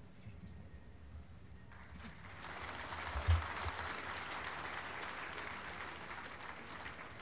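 Audience applauding, starting about two seconds in and slowly tapering off near the end, with a single low thump just after it begins.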